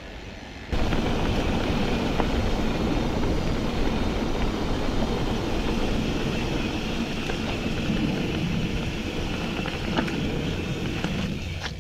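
Riding noise from a mountain bike rolling down a dirt and gravel path: steady rushing of wind on the camera's microphone mixed with tyre rumble, starting suddenly about a second in. A couple of sharp knocks near the end as the bike hits bumps.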